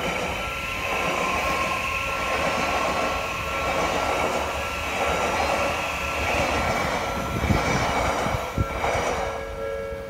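Red Odakyu Romancecar train passing through a level crossing: a loud, even rush of wheels on rail with a slow pulsing, and a few low clunks near the end. Over it the crossing's electronic alarm bell keeps ringing, and it stands out alone again once the train has gone by, about nine seconds in.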